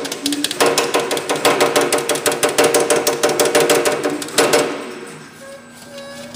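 Power hammer running a rapid, steady run of strokes on an aluminium body panel between a linear stretch die and a flat top die, stretching and raising the metal. The hammering stops about four and a half seconds in.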